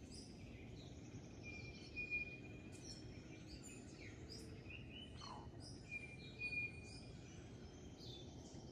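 Faint dawn chorus of several tropical birds: scattered short chirps and whistles, with a few held level whistles and one falling call, over a low steady background hiss.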